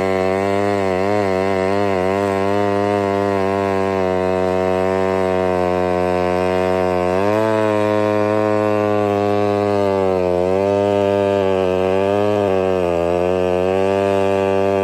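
Homelite 770D two-stroke chainsaw running at high throttle while cutting through a log. The engine pitch sags as the chain bites into the wood and picks up again as the load eases, rising at about the halfway point and dipping twice near the end.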